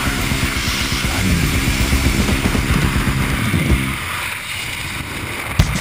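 Background music: low sustained notes that drop out about four seconds in, followed by a thinner, hissy stretch and a couple of sharp hits at the very end.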